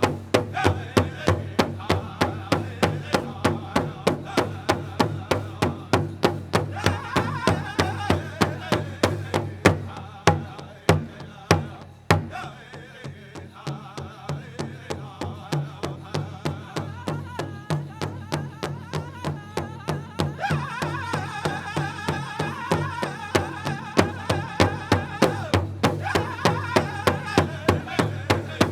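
Powwow drum group playing a chicken dance song: a large drum struck in a steady unison beat, about two and a half strikes a second, under group singing. The drumming and singing drop softer about twelve seconds in and come back up about twenty seconds in.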